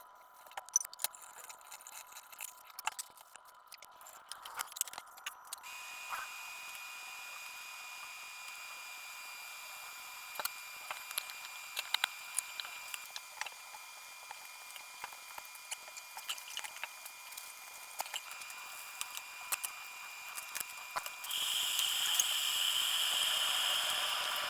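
Kitchen preparation sounds: scattered light clicks and taps of utensils and food being handled, with a thin steady high tone underneath and a steady hiss setting in about three seconds before the end.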